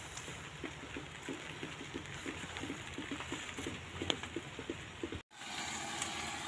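Faint trickling and splashing of water from a garden hose running into a styrofoam box, with small irregular patters. It cuts out abruptly for a moment about five seconds in.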